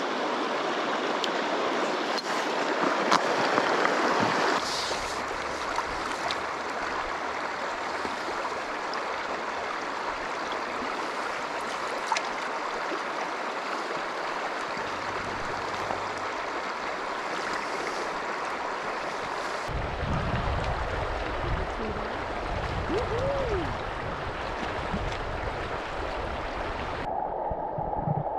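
Steady rush of a shallow creek running over cobbles. About two-thirds of the way through, a low rumble of water sloshing close to the microphone joins in. Near the end the sound turns dull and muffled as the microphone goes underwater.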